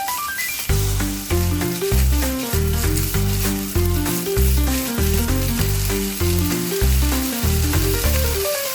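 Food sizzling as it is stir-fried in an oiled frying pan, under background music with a plucky melody and a strong bass line.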